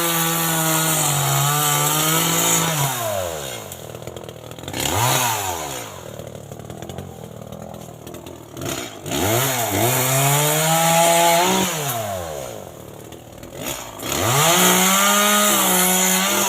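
Chainsaw revving up, holding high and winding back down, three long revs with a short blip about five seconds in, falling back to a low idle between them.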